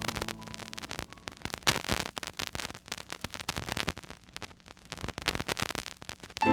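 Vinyl LP surface noise in the silent groove between tracks: a faint hiss with many scattered crackles and clicks, one louder pop about a second and a half in.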